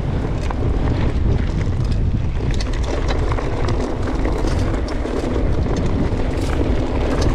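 Wind buffeting the microphone over a mountain bike's tyres rumbling down a rutted dirt-and-grass track, with frequent small clicks and knocks from stones and the bike, coming thicker from about two and a half seconds in.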